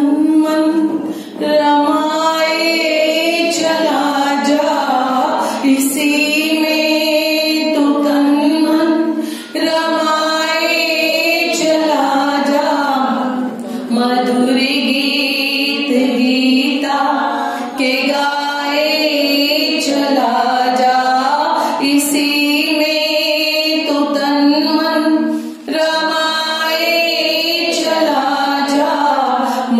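A woman singing a Hindi devotional song, the melody running on with only brief breaks between phrases.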